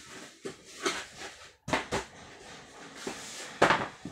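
Large cardboard box being handled and opened: a string of short scrapes and rustles of cardboard, the loudest near the end.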